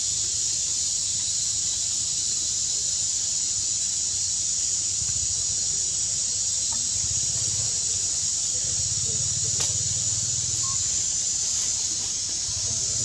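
Steady high-pitched insect drone, like a cicada chorus in the forest canopy, with a low rumble underneath.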